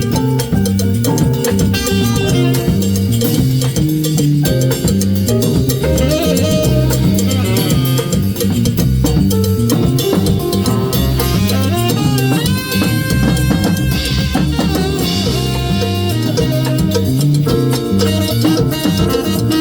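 Band playing a Latin-flavoured jazz number: a drum kit keeps a steady groove under a stepping bass line, with a melody above.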